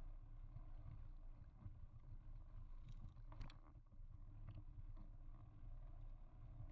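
Faint low rumble of a mountain bike rolling over a leaf-covered dirt trail, with a few light clicks and rattles about three and a half seconds in.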